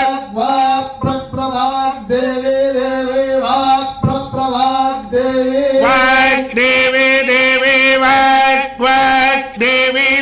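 Male voice chanting Vedic Sanskrit mantras in long held notes on a nearly steady pitch, broken by short pauses between phrases.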